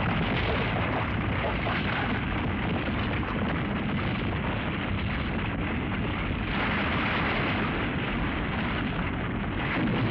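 Steady, dense rumbling of the ground erupting as a burrowing monster breaks through, with a jet of smoke blasting out of the earth. The noise grows brighter and harsher about six and a half seconds in.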